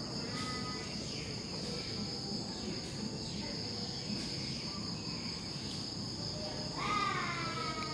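Steady, high-pitched insect chorus of crickets or cicadas, with a short animal call that falls in pitch about seven seconds in.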